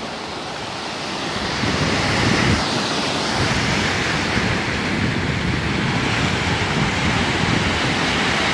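Sea waves surging and breaking over rocks below a cliff, a continuous wash of surf that swells louder about two seconds in and stays strong.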